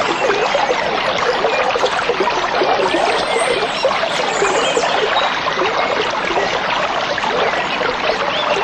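A small stream babbling, a steady dense trickle and gurgle of running water.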